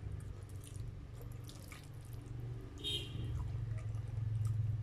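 A metal fork stirring and twirling sauced spaghetti in a metal pan: wet squelching with scattered clicks and scrapes, and a brief metallic ring of the fork against the pan about three seconds in, over a low steady hum.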